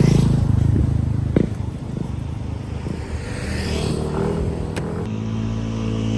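Motorcycle engine running, with a sharp knock about a second and a half in. The engine note changes abruptly to a steadier drone about five seconds in.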